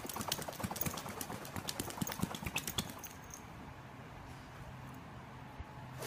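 Quick, irregular light taps and clicks of a cat's paws and claws striking a tablet's glass screen, thinning out about halfway through.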